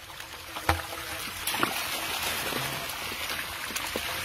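Dry sand and soil scraping and trickling as a hand digs into a hole in a sandy bank, with one sharp knock about a second in.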